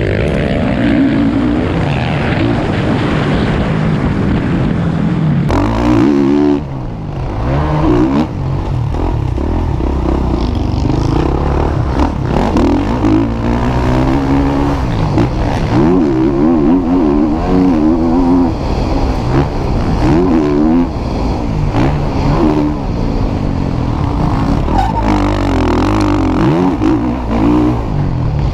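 Motocross bike engines revving hard and easing off again and again as the bikes ride the track, their pitch climbing and dropping with each gear change.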